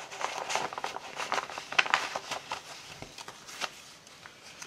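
Paper rustling and scraping as a stiff postcard is slid into a paper envelope and the journal page is pressed down, with a run of quick crinkles over the first two or three seconds and one more just past the middle, quieter toward the end.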